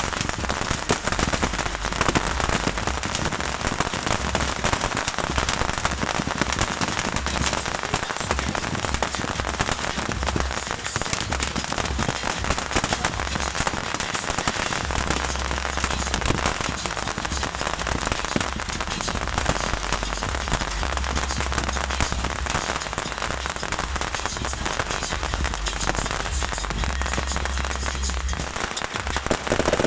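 Beehive fireworks firing en masse: a dense, unbroken crackle of countless small rockets and firecrackers going off at once.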